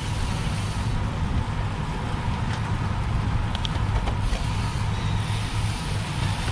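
Steady low wind rumble and tyre noise on a bicycle-mounted camera's microphone while riding, with a few faint clicks around the middle.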